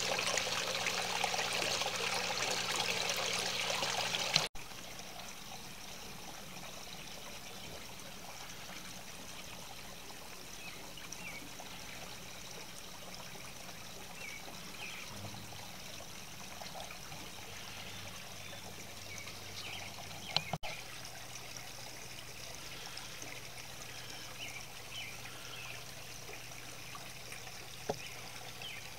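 Small garden water fountain trickling steadily; the sound is louder for the first few seconds, then drops abruptly and goes on more quietly.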